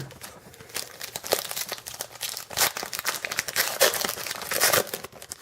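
A plastic trading-card pack wrapper crinkling and being torn open, with irregular sharp crackles that come thickest in the second half.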